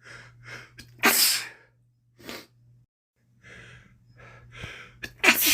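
A man with a head cold sneezing twice, once about a second in and again near the end, with short sniffs and inward breaths between the sneezes.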